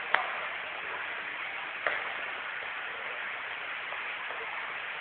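Steady background hiss with two sharp clicks, one just after the start and one a little under two seconds later.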